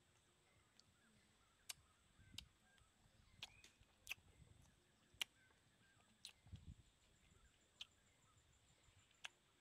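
Faint mouth sounds of a rambutan being eaten: sharp little clicks and smacks at irregular intervals, about eight in all, with a few soft low thumps between them.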